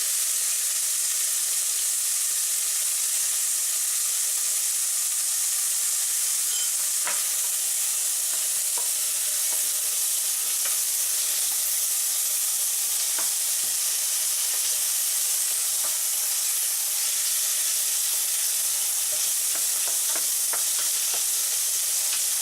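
Steady sizzle of minced-beef steak sticks and mushrooms frying in hot oil in a pan, with a few faint clicks scattered through it.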